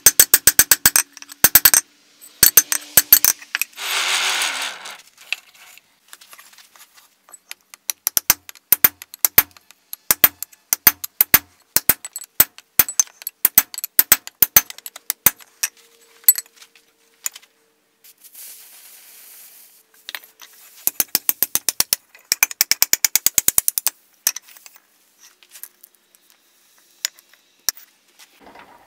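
Forging hammer striking hot steel on an anvil, shaping a seax blade: runs of sharp ringing blows with pauses between them. There is a brief rushing noise about four seconds in.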